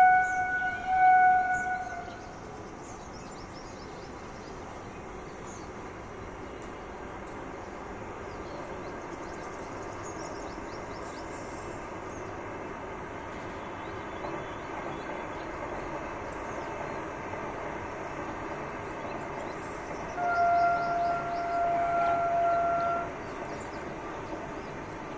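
Vande Bharat Express train sounding its horn, a single steady note that ends about two seconds in. Then the steady rumble of the train running in the distance, slowly growing louder. About twenty seconds in comes a second, slightly lower horn blast lasting nearly three seconds.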